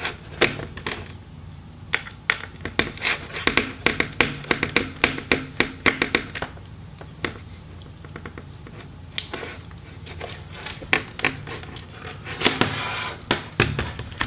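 Screwdriver clicking and scraping in the display hinge screws of a MacBook Pro's aluminium case, with hands handling the laptop: quick runs of small clicks, a short lull near the middle, then more clicks.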